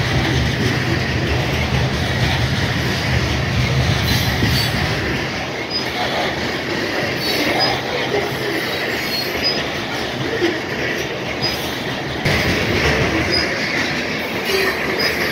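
Covered hopper cars of a BNSF freight train rolling past close by: a steady rumble and rattle of steel wheels on rail, with short high wheel squeals every second or so. The sound changes abruptly about twelve seconds in.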